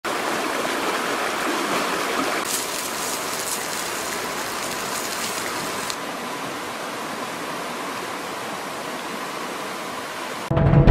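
Swollen, muddy river rushing in rapids, a steady wash of water noise that drops a little in level about six seconds in. Music starts just before the end.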